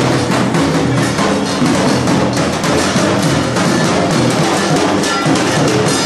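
Loud music with fast, dense drumming over a steady low melody.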